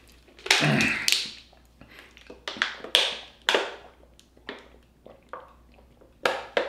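Close-up eating sounds: a series of short, sharp clicks and crunches of food and utensils, irregularly spaced about once a second.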